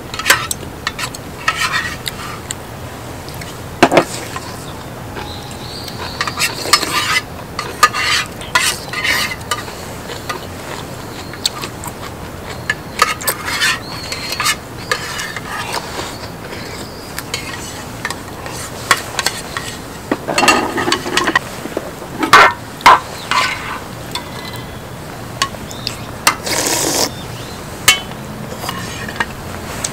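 Cutlery clinking and scraping against bowls and a cast-iron pot-lid griddle during eating, in scattered short clicks and a few longer scrapes, over a steady background hiss.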